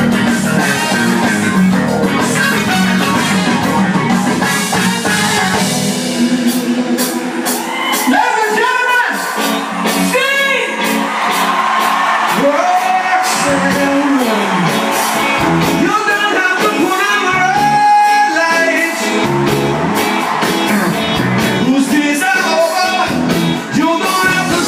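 Loud music with a singing voice, played back through a rack of power amplifiers; the sung line glides up and down, standing out more clearly in the second half.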